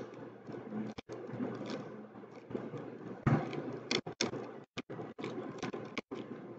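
Plastic 3x3 Rubik's cube being turned fast by hand: an irregular run of small clicks and clacks from the layers, with a louder clack about three seconds in.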